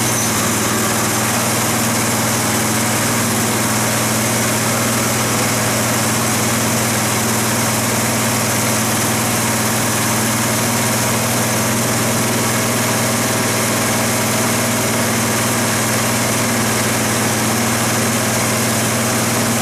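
Wisconsin TRA-10D single-cylinder air-cooled engine of a Bolens 1050 garden tractor running steadily at an even speed, after an axle seal replacement.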